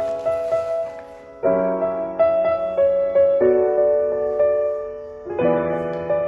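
Background piano music: held chords changing about every two seconds.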